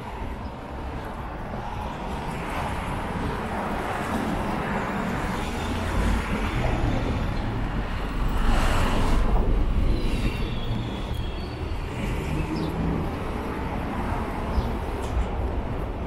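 Subway train running: a steady low rumble that builds over the first several seconds and is loudest about eight to ten seconds in.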